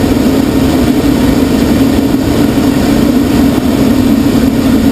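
Steady, loud drone inside a glider cockpit on aerotow: air rushing over the canopy, with the tow plane's propeller engine droning ahead.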